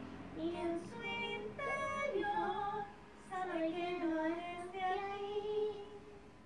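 Young girl singing, in two sustained phrases with a short break about three seconds in, the second phrase fading near the end.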